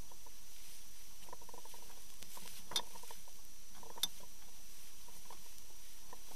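Underwater hiss of water rushing past a boat-mounted underwater camera, with faint squeaky patter in the middle as bubbles stream over the housing, and two sharp clicks about a second and a quarter apart.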